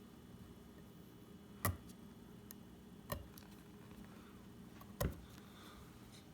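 Three short sharp clicks, about a second and a half apart, over a faint low hum, as a utility knife blade cuts holes in cloth adhesive stealth strip on a climbing stick.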